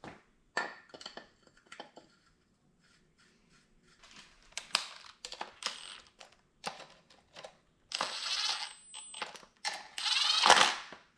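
Metal parts and bolts clink and click as a pulley is fitted by hand. Then a cordless driver runs twice near the end, spinning the pulley bolts in, and the second run is the louder.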